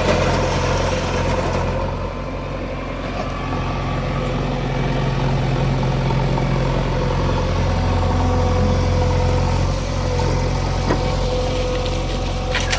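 Diesel engine of heavy construction machinery running steadily, a little quieter a couple of seconds in, then building back up.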